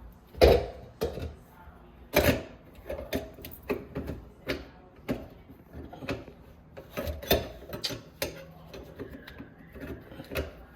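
Irregular clicks and knocks of sink basket strainer parts being handled and fitted from below the sink, the loudest knocks about half a second and two seconds in.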